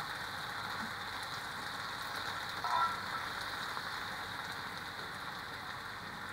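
Brown sauce sizzling softly on a warmed cast-iron sizzle plate, a steady fine crackle, with a brief scrape of the metal spoon against the plate about two and a half seconds in.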